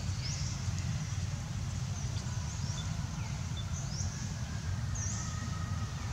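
Outdoor ambience of birds chirping in short, high sweeps every second or so, over a steady low rumble.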